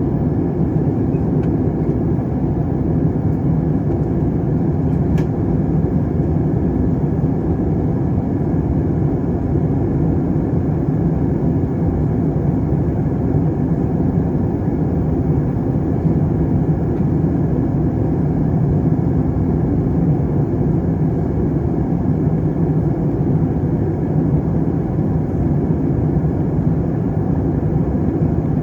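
Airliner cabin noise in flight: the steady, even drone of the jet engines and rushing airflow, heard from inside the cabin by a window seat.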